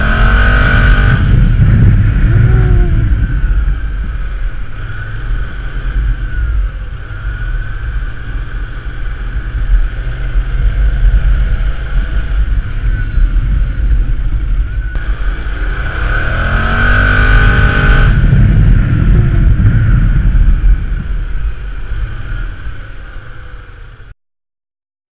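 BMW maxi-scooter's engine pulling the scooter along on a test ride, rising in pitch as it accelerates near the start and again about 16 seconds in, over heavy wind rumble on the microphone. The sound cuts off suddenly near the end.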